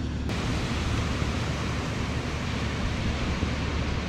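Wind buffeting the microphone over sea surf washing onto the beach: a steady rushing hiss with a low rumble. The hiss suddenly grows fuller a moment in.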